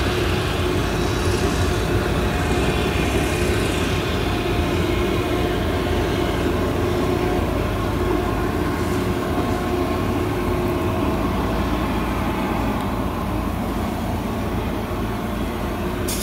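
Claas Jaguar 970 forage harvester with its MAN V8 engine running steadily under load while chopping maize, a continuous drone at an even pitch.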